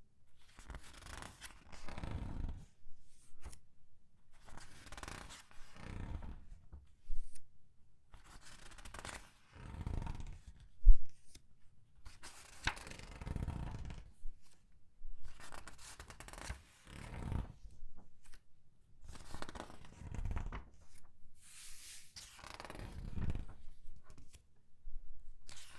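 Comic book pages being turned and squeezed, a rustling, crinkling paper swish every second or two. A sharp tap about eleven seconds in is the loudest sound.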